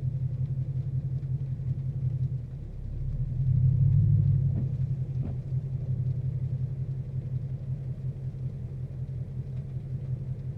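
The 2014 Mustang GT's 5.0 Coyote V8 idling roughly. About two and a half seconds in, the idle sags and shudders, then surges louder for a second or so before settling back to a steady idle. This recurring rough-idle fault comes on at the same moment as the cooling fans switch on; the owner is unsure which causes which.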